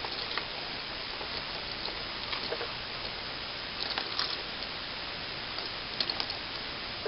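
Loose plastic Rubik's cube pieces clicking lightly as they are handled and set down: a few scattered small taps over a steady hiss.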